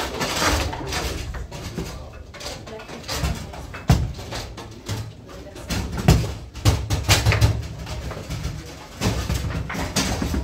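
Foosball game in play: irregular sharp clacks and knocks of the ball against the figures and the table walls, and of the rods being worked, with the loudest knocks about four and six seconds in. Play at other tables in the room adds more clacking.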